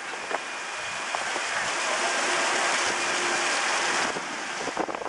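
Water splashing from a row of small ground fountain jets, a steady hiss that swells and then falls away about four seconds in.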